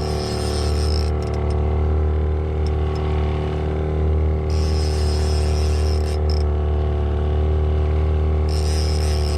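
Fishing boat's motor running steadily, a low even drone that holds without change. A high hiss comes and goes three times over it.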